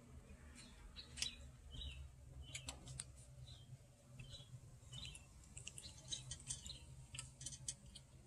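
A cat eating from the mouth of an old stoneware jar: faint, scattered clicks of chewing and licking, with short high chirps in between.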